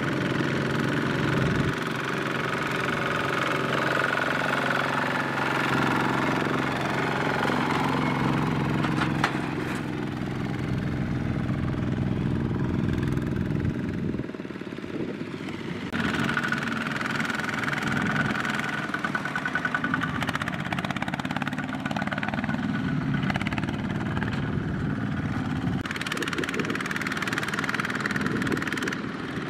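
Single-cylinder Kubota diesel engines of two-wheel rice-hauling tractors running hard as they pull loaded trailers through mud. The engine sound drops back briefly about halfway through, then carries on steadily.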